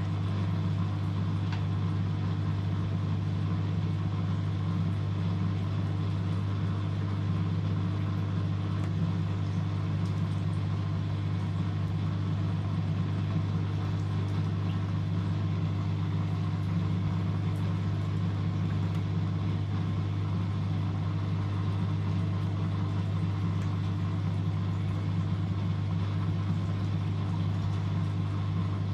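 Antonio Merloni-built M eurotech EW 450 washing machine running with a steady low hum that holds unchanged, during the rinse-and-spin end of its 95 °C boil-wash programme.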